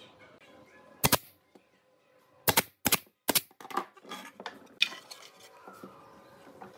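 Sharp knocks and clatters of hard objects, irregularly spaced: one about a second in, three quick ones a little later, fainter clatter, then another knock near the middle.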